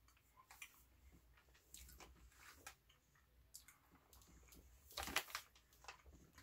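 Faint wet mouth sounds of someone chewing a soft sour gummy candy: scattered soft clicks and smacks, with a few louder ones about five seconds in.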